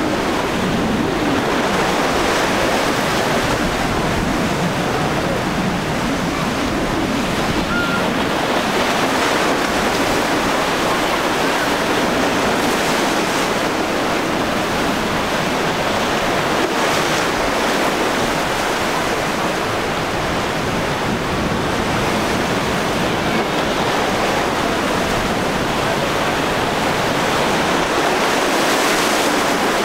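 Rough, choppy inlet water churning and splashing, with gusty wind blowing on the microphone: a steady, loud rushing noise.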